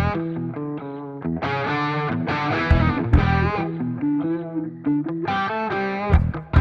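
Background music led by distorted electric guitar, with a bass line and drum hits.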